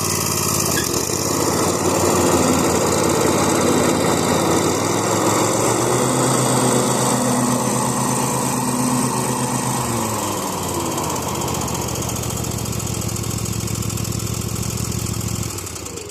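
Toro TimeCutter SS5000 zero-turn mower engine running steadily, now that its no-crank, no-start fault is fixed. Its pitch steps up about five seconds in and slides back down about halfway through, as the engine speed changes.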